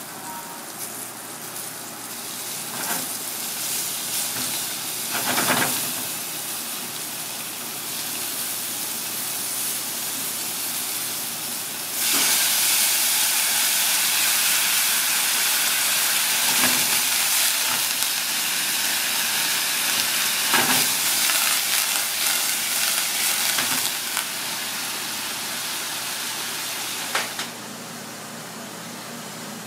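Food sizzling in a hot cast-iron pan, with a few short clicks of chopsticks against the pan. About twelve seconds in, a sudden, louder hiss of steam takes over, easing off after about twelve seconds and stopping abruptly near the end.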